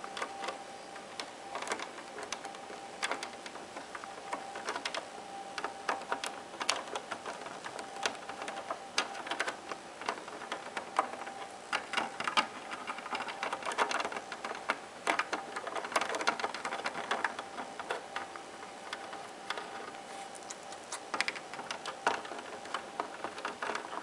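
Indian ringneck parakeet's beak nibbling and gnawing at an espresso machine's drip-tray grille: an irregular run of small sharp clicks and taps.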